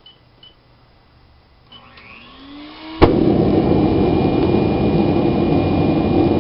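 A gas forge's blower starts by hand: its motor spins up with a rising whine, then about three seconds in a sharp pop and a loud steady rushing roar of the blower-fed propane forge begins.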